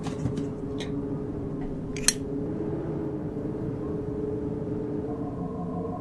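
Steady low electronic drone with a few faint clicks and one sharp click about two seconds in. Near the end a higher steady hum comes in as a flying saucer arrives.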